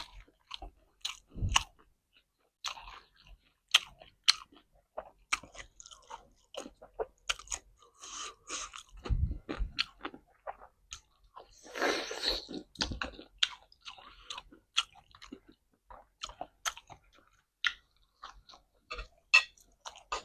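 Person chewing and crunching crunchy food close to the microphone: a steady run of sharp crunches and wet mouth clicks, with a denser burst of crunching about twelve seconds in.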